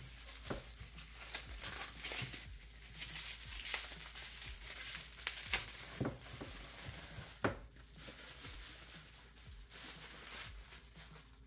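Plastic bubble wrap crinkling and rustling as it is pulled off a coiled charging cable and its controller, with irregular sharp crackles, the loudest about two-thirds of the way through.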